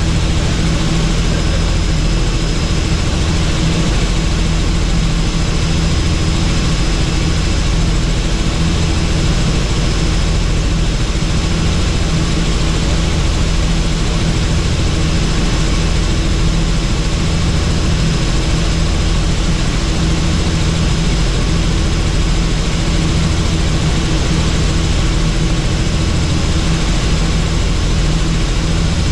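Helicopter in flight: a steady rotor and turbine drone with a constant high whine.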